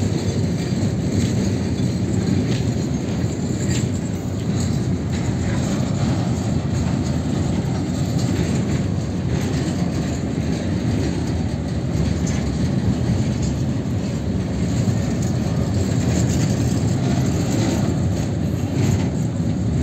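Empty railway flat wagons rolling past during shunting: a steady rumble of steel wheels on the rails with occasional clicks.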